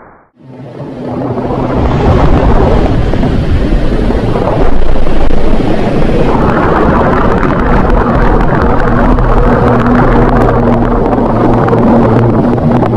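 A 'space sound', a recording of space data turned into audio: a loud, steady noisy rumble with a low hum underneath. It swells in over the first couple of seconds, straight after a sudden cut from the previous sound.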